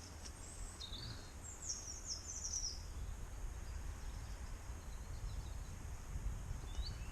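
A small bird chirping in short, high twittering phrases in the first three seconds, with one more brief chirp near the end, over a steady low rumble.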